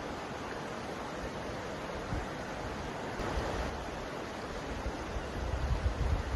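Mountain river flowing, a steady rush of water. Low rumbling gusts of wind on the microphone build near the end.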